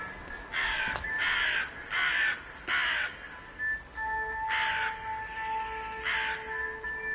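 A crow cawing: four harsh caws in quick succession, then two more spaced out, over background music.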